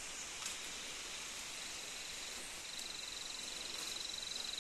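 An insect's high, fast-pulsing trill comes in about one and a half seconds in and grows louder toward the end, over a faint, steady outdoor hiss.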